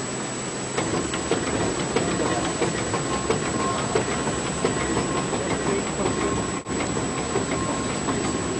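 The paddle steamer Waverley under way: her triple-expansion steam engine and paddle wheels running, a steady churning hiss with a regular knock about twice a second. It grows louder about a second in.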